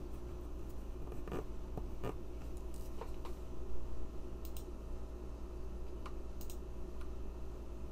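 A handful of light, scattered clicks and taps, about eight, over a steady low hum.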